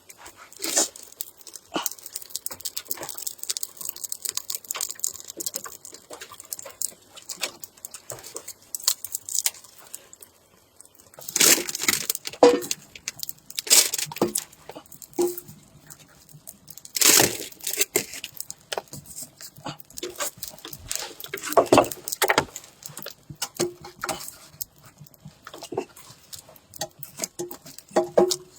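A dog chewing and crunching something, a dense run of irregular crackles and clicks with louder bursts about twelve, seventeen and twenty-two seconds in, and a few short squeaks.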